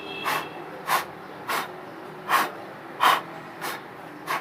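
A series of about seven short puffs of breath, roughly one every two-thirds of a second, blowing dust out of the inside of an opened amplifier.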